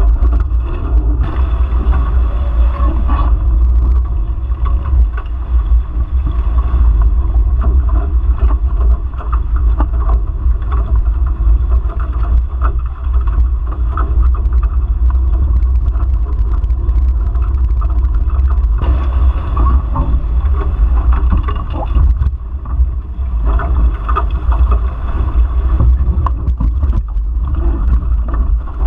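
Steady heavy wind buffeting on a camera microphone mounted on a Nacra Infusion F18 sailing catamaran, over the rushing and splashing of water past the hulls as the boat sails at speed.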